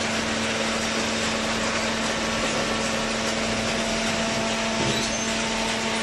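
Horizontal hydraulic baler for corrugated cardboard running: a steady machine noise with a constant hum.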